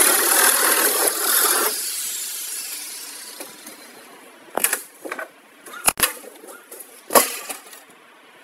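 Corded reciprocating saw cutting into a boat's hull, stopping about a second and a half in. Three sharp knocks and clanks follow as the cut pieces are handled.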